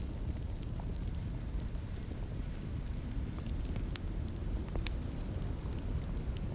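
Wood fire in a fireplace crackling: a steady low rumble with scattered small pops, two sharper ones about four and five seconds in.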